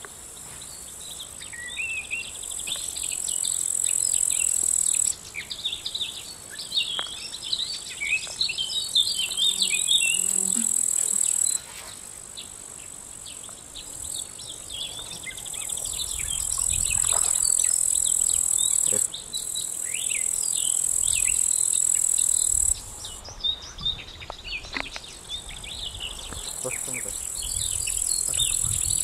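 Steady high-pitched insect chirring that cuts in and out abruptly several times, with many short bird chirps over it and a low rumble now and then.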